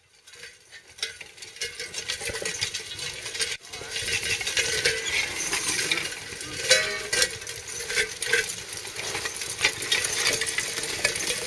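Metal clinking and rattling of a mule team's trace chains and harness and the horse-drawn disc harrow they pull. About seven seconds in, a brief pitched sound stands out as the loudest moment.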